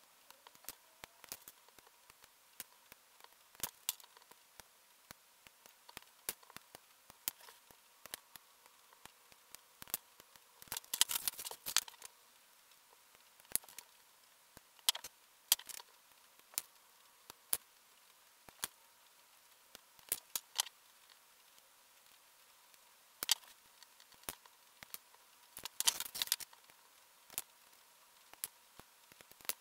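Hobby side-cutter nippers snipping plastic model-kit parts from their runners: scattered sharp clicks. Two brief clusters of rapid clicking come about a third of the way in and again near the end.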